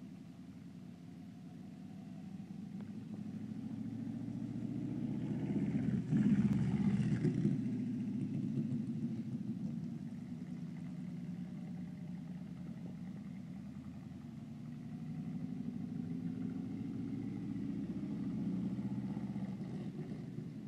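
3/4 midget race car's engine running as the car laps, getting louder as it passes close about six seconds in, fading, then rising again toward the end.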